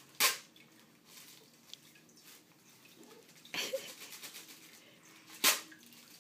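Inflated plastic air-cushion packing pillows being torn open, each bursting with a sharp pop of escaping air: one just after the start, one about three and a half seconds in followed by a short crinkle of plastic, and one near the end.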